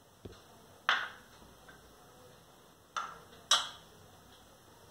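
Kitchen cookware on a gas stove while ghee heats in a kadhai: a soft knock at the start, then three sharp ticks with a short ring, one about a second in and two close together near three and a half seconds.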